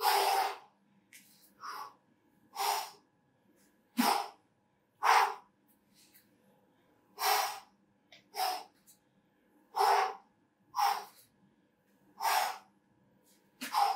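A person's sharp, forceful exhalations during exercise, about one every second, each a short puff of breath in time with the reps of a rotating push-up-position exercise.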